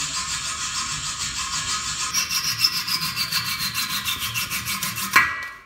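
Rapid back-and-forth scraping of a looped-blade hand scraper on a painted sheet-metal sculpture, about five strokes a second. A thin squeal falls in pitch midway, and a sharp click comes just before the scraping stops.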